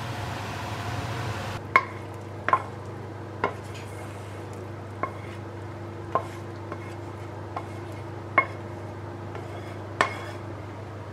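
Vegetables sizzling briefly in a frying pan, then about nine sharp metallic knocks with short ringing as a frying pan and wooden spatula knock against a metal springform tin while leeks and mushrooms are scraped in. A low steady hum lies under it all.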